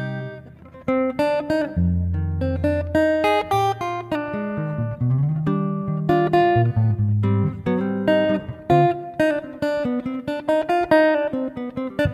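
Background music: a solo acoustic guitar picking an instrumental passage, with melody notes over bass notes and no singing.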